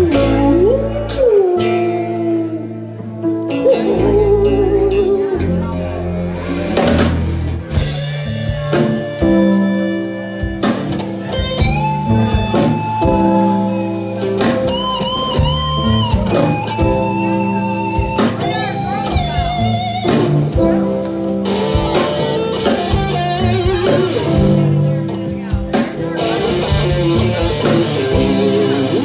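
Live rock band playing: electric guitar, keyboards and drum kit. After a sparser opening, the drums come in with a steady beat.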